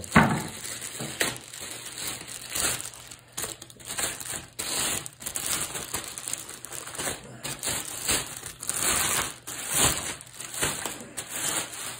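Clear plastic wrapping and bubble wrap being pulled off a new bicycle fork by hand, crinkling and rustling irregularly throughout, with a sharp crackle just after the start.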